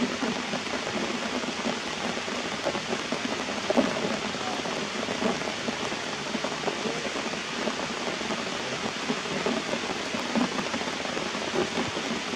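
Steady rain falling on leaves and rocks, an even hiss.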